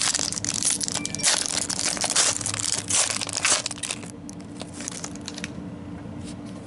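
Foil wrapper of a Marvel Flair trading-card pack crinkling and crackling as it is torn and peeled open by hand. The crinkling is dense for about four seconds, then thins to a few light crackles and fades.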